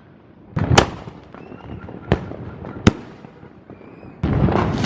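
Neighbourhood fireworks going off: three sharp bangs about a second apart, the first the loudest with a rumble after it. Near the end a loud burst of rapid crackling starts suddenly.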